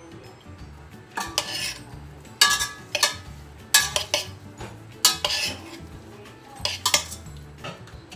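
A metal spoon clinking against the side of a stainless-steel pot while boiled potato chunks are stirred with seasoning: a series of sharp, ringing clinks at uneven intervals.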